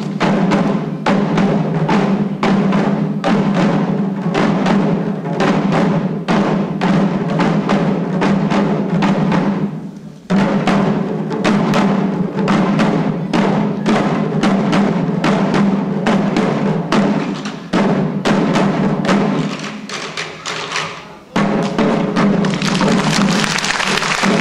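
Shishi odori deer-dance drums, small taiko strapped to the dancers' chests, beaten by a group in a fast, even rhythm over a steady low tone. The beat breaks off briefly about ten seconds in and again around twenty seconds. Applause starts near the end.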